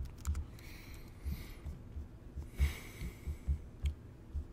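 Dull low taps and knocks carried through a laptop body as its keyboard and trackpad are used, roughly two a second and uneven, with a few light clicks and two soft breathy hisses.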